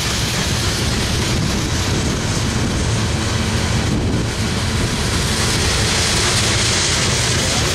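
Freight train's sand-loaded covered hopper cars rolling past close by: a steady rumble and rush of steel wheels on the rails.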